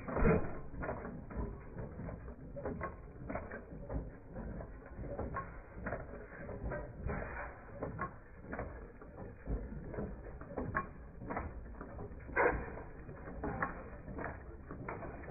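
Machinery clattering, with many irregular mechanical clicks and knocks.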